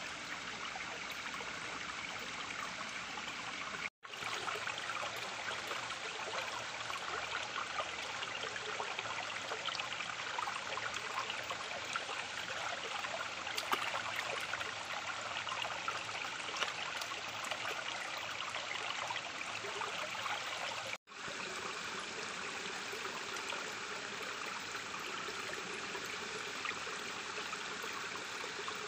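Shallow stream running steadily over rocks, a constant rush of water. The sound cuts out for an instant twice, about four seconds in and again about two-thirds of the way through.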